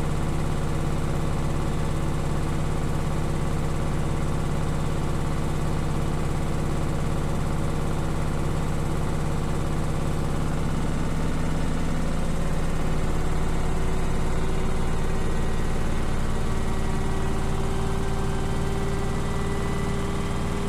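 Beko washing machine spinning: a steady motor and drum hum with a fast, regular ticking running through it. The ticking is not cured by levelling the feet or adding vibration dampers. About twelve seconds in, the pitch of the hum shifts as the spin speed changes.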